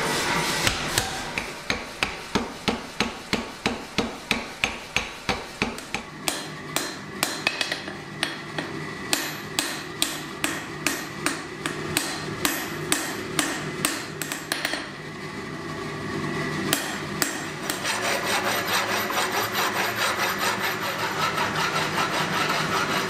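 A blacksmith's power hammer striking hot steel in a quick steady rhythm, about three blows a second. Then hand-hammer blows on an anvil, about two a second. Near the end, an angle grinder runs steadily against a steel bar.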